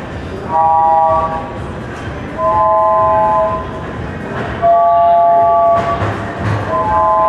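A small organ built into a wooden winged sculpture plays a slow run of held three-note chords, four in turn, each about a second long with a short pause between and a different chord each time.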